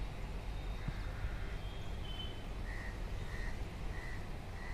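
Steady low electrical hum of energised substation transformers, with a bird calling over it: a few high chirps, then four short, even notes spaced a little over half a second apart.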